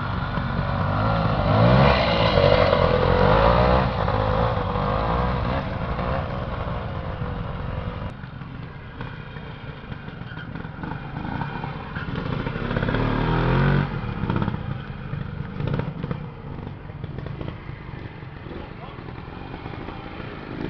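Classic trials motorcycle engines revving in bursts as the bikes pick their way over rocks. The revving is loudest about two seconds in and again about thirteen seconds in.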